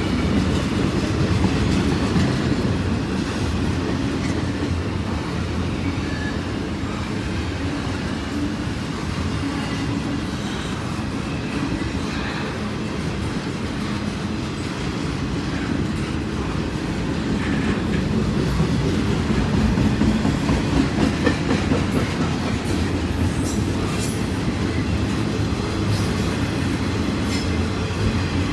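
Double-stack intermodal well cars rolling past: a steady rumble of steel wheels on rail, with a run of rhythmic wheel clicks over rail joints about two-thirds of the way in and sharper clicks near the end.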